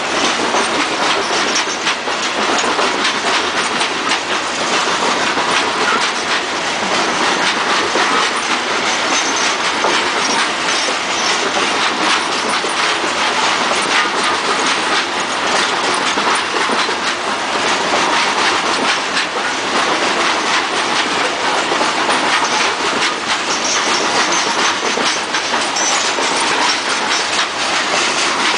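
CSX open-top rock cars of a freight train rolling past over a grade crossing: a steady, continuous rumble and clatter of steel wheels on the rail joints.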